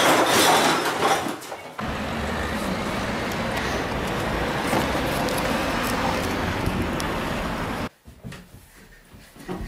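Steady road traffic, with car engine and tyre noise, from about two seconds in. It cuts off abruptly near the end, leaving a much quieter stretch with a few faint knocks.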